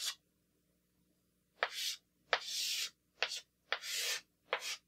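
Chalk scraping on a blackboard in short drawing strokes: a brief one at the start, then about five more from about one and a half seconds in, the longest at about two and a half seconds.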